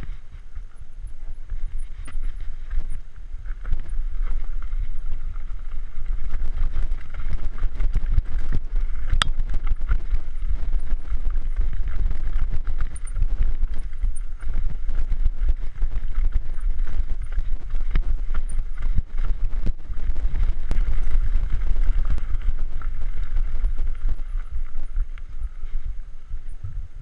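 Mountain bike descending a dirt trail, heard from a camera worn by the rider: a steady low wind rumble on the microphone with constant rattling and knocks from the bike and camera jolting over roots and rocks.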